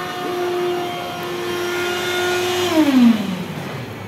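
Robotic cotton candy vending machine's spinning head running with a steady whine over a hiss, then spinning down with a falling pitch a little under three seconds in, as the floss ball on the robot arm's stick is finished.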